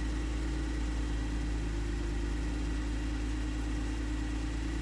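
2011 Camaro RS's 3.6-litre V6 idling steadily, freshly started after an oil change.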